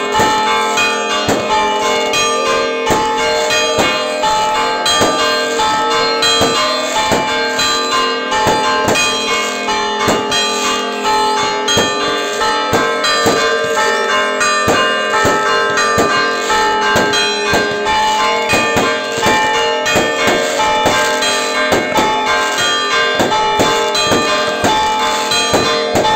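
Church bells ringing fast and without a break in a festive peal, the traditional ringing that announces the Resurrection at Orthodox Easter. Many sharp bangs fall irregularly among the bell strokes.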